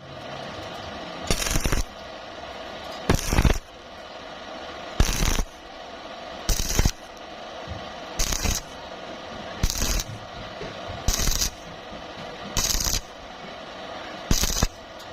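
Stick-welding arc struck in short bursts of about half a second, nine times, evenly spaced about every second and a half: stitch welding on thin square tube, over a steady hum.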